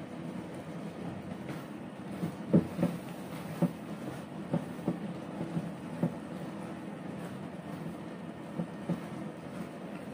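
A plastic spatula knocking and scraping against a non-stick frying pan while stirring sweet potato leaves in a steaming sauce: a run of irregular knocks, the loudest about two and a half seconds in, over a steady background noise.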